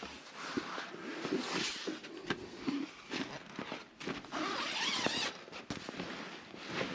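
Canvas tent fabric rustling and scraping as the door flap is pushed aside by hand, with a few light knocks.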